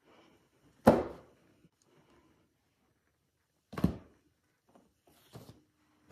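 Two heavy thuds about three seconds apart as stacks of hardback books are set down, the first the louder, followed near the end by softer shuffling.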